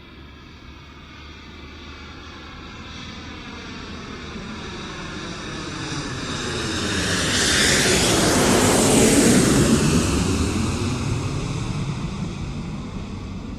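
Jet aircraft flying past overhead. Its roar builds steadily, is loudest a little after the middle, then fades away, with a sweeping, phasing hiss as it passes.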